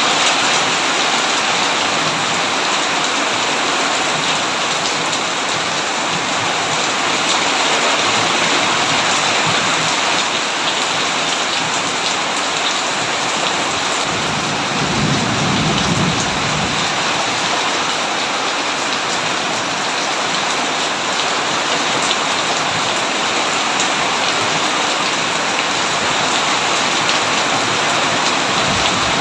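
Heavy rain pouring steadily as a dense, even hiss, with one low rumble of thunder lasting a couple of seconds about halfway through.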